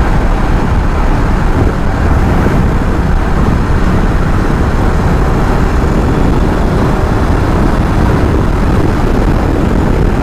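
KTM Duke 390's single-cylinder engine running while riding at about 75 km/h, under a steady, loud rush of wind and road noise on the microphone.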